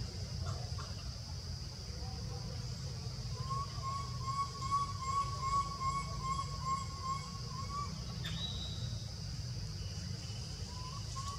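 Forest ambience: a steady high insect drone, with a short chirping call repeated about three times a second for several seconds in the middle, over a low rumble.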